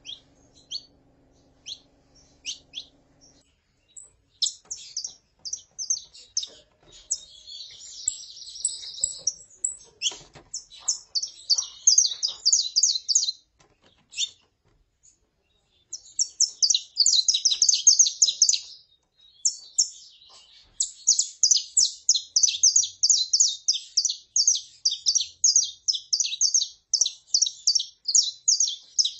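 Saffron finches (canário-da-terra): a female's calls and a male's song. There are scattered short high chirps for the first few seconds, then long runs of rapid high chirping notes, broken by a pause of about two seconds in the middle.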